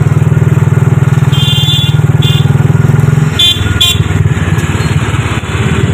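Auto-rickshaw engine running close at hand with a fast, even chug that breaks up and eases off about three seconds in. Vehicle horns beep four times over it: a longer beep and a short one in the first half, then two louder short beeps a little after three seconds.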